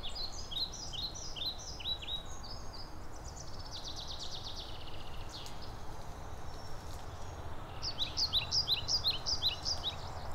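Songbirds singing in leafless woodland: runs of short, quick, downward-slurred high notes, a rapid trill in the middle, and another run of quick notes near the end, over a steady low background rumble.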